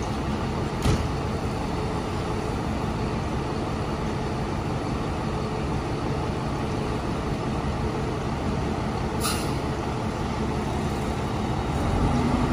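Fire engine's diesel engine running steadily as the rig creeps out of the firehouse, with a short hiss of air from its air brakes about nine seconds in.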